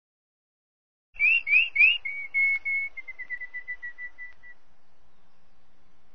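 A bird singing a clear whistled song: three rising notes, then a few level notes, then a quickening series of shorter notes that fall slightly in pitch before stopping.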